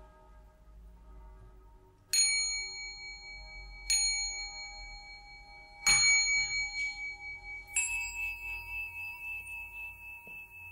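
Bell chimes struck four times, about two seconds apart, each ringing on after the strike; the third is the loudest and the fourth is higher in pitch.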